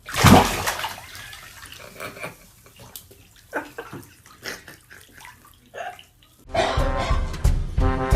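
Water splashing in a bathtub, loudest in the first second, then scattered smaller splashes and knocks. Music starts about six and a half seconds in.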